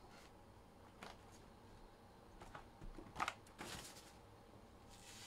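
Faint rustling and clicking of trading cards being handled, with a louder rustle about three seconds in.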